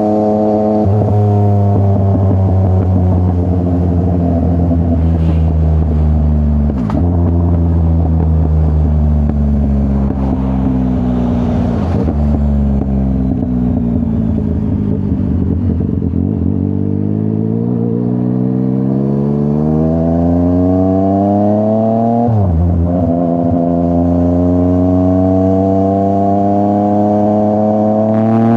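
Yamaha MT-09's three-cylinder CP3 engine running through a full Akrapovic exhaust. The engine note falls gradually as the bike slows, with a brief break about seven seconds in. It then climbs again under acceleration, broken by a quick gear-change dip about six seconds before the end.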